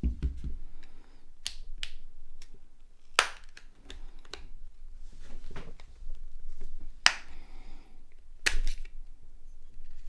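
Sharp plastic clicks and snaps, about eight spread irregularly, as the front housing of a Nokia X2-01 is pried off its clips, with handling noise between them; the loudest snaps come about three seconds in and near the end.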